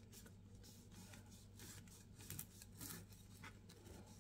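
Faint scraping of a knife cutting into a small microwave-baked bread, a few short strokes that grow a little louder in the second half, over a low steady hum.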